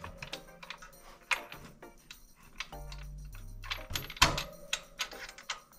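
Metal clinks and knocks from hand tools and bike parts, a few sharp hits spaced a second or so apart, as a chain tension bracket is worked back onto the rear axle of a Talaria Sting R electric dirt bike. Background music with a low bass line runs underneath.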